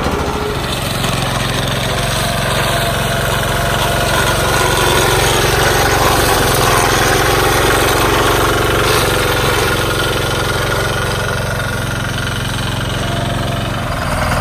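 Small single-cylinder petrol engine of a mini tractor running steadily, a little louder in the middle.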